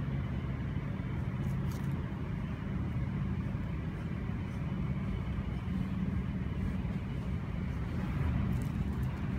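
Steady low outdoor background rumble with an even hiss above it and a few faint ticks; no meowing.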